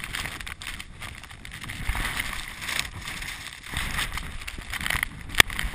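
Wind gusting over the camera microphone, an uneven noise with a low rumble that rises and falls, and a single sharp click near the end.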